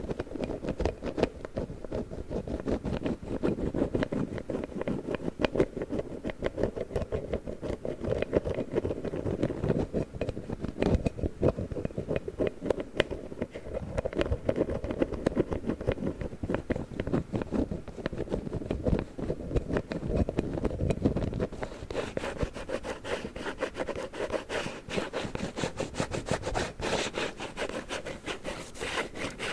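An empty plastic cream package handled close to the microphone: continuous rubbing and scratching with fast little clicks. It turns brighter and crisper about two-thirds of the way through.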